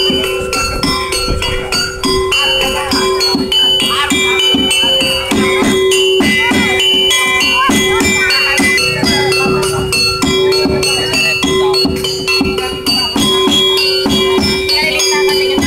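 Rhythmic percussion music with a quick steady beat and ringing, bell-like metallic notes over a steady held tone.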